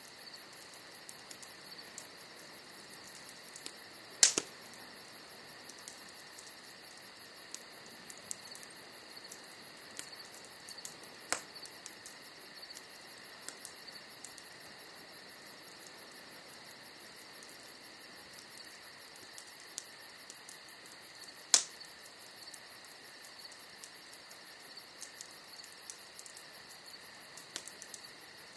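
Bonfire of burning wood crackling, with sharp pops about 4, 11 and 22 seconds in; the first and last are the loudest. Behind it runs a steady, high-pitched insect chirring.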